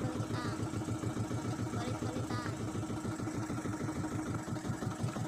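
Small fishing-boat engine idling steadily, with an even low pulse.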